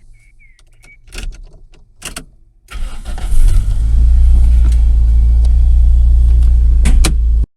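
Toyota Starlet's engine starting about three seconds in, then running at a steady idle, after a few light clicks and knocks. The engine sound cuts off suddenly near the end.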